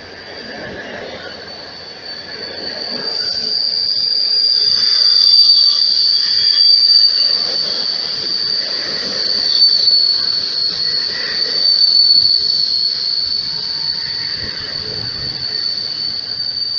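Passenger coaches of an arriving train rolling slowly along a platform while braking, with a loud, steady high-pitched squeal from the wheels and brakes over a low rumble. The squeal swells over the first few seconds and then holds at one pitch.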